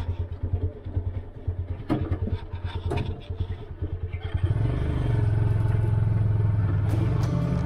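Auto rickshaw engine idling with a fast uneven pulse, with a couple of sharp clunks about two and three seconds in. About four and a half seconds in it speeds up to a steady, louder drone as the rickshaw pulls away.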